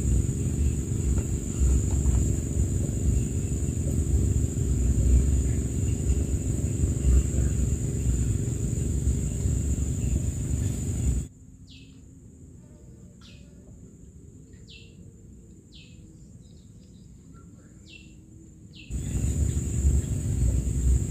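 Steady high-pitched insect drone over a heavy low rumble of outdoor noise. About halfway through, the rumble cuts out suddenly for several seconds, leaving the insect drone and about six short, falling bird chirps, then the rumble comes back.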